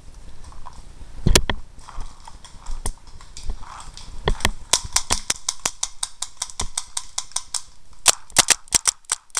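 Paintball marker firing: a few single shots in the first half, then a long rapid string of about ten shots a second, and another quick burst near the end.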